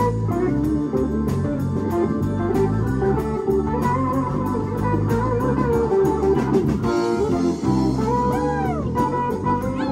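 Live rock band playing an instrumental passage: electric guitar over bass guitar, drum kit and keyboards, with a steady drum beat. Near the end there are bent guitar notes that rise and fall.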